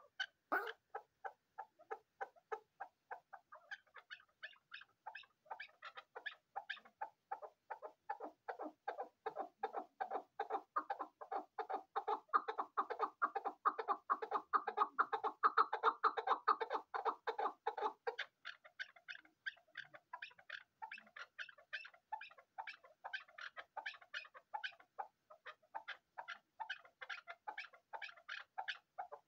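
Chukar partridge calling: a long run of rapid, repeated chuck notes, about four a second. The notes grow fuller and louder toward the middle, then turn thinner and higher after about eighteen seconds.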